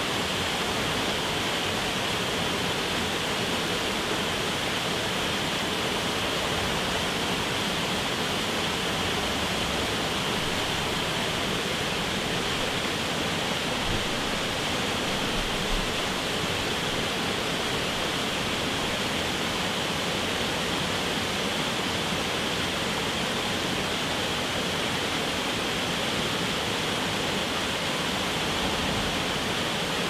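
Small waterfall cascading down a rocky brook: a steady rush of falling, splashing water.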